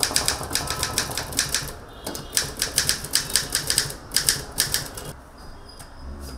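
Manual typewriter being typed on: runs of rapid, sharp key strikes, about seven a second, broken by short pauses, thinning to a few fainter clicks near the end.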